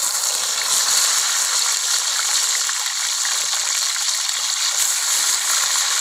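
Hot oil in a wok sizzling as whole fish deep-fry in it: a loud, steady hiss with small crackles.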